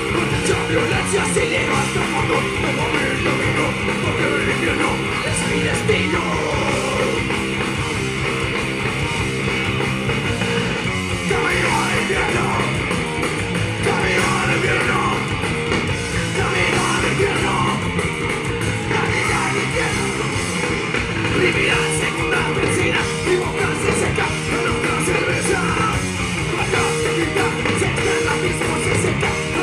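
Punk rock band playing live through the PA: electric guitar, bass and drums, with vocals over parts of it.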